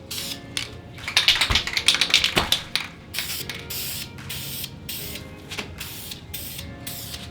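Aerosol spray-paint can spraying in repeated short hisses as a part is painted. A quick run of clicking comes between about one and three seconds in.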